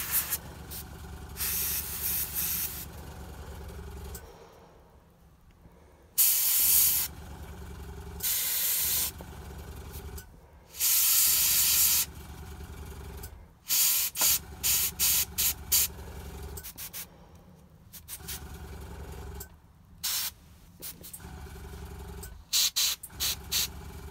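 Airbrush spraying paint in short hissing bursts of a second or less, with quick strings of brief puffs about two-thirds through and again near the end. A low, steady motor hum, the airbrush compressor, runs underneath and stops a few times between passes.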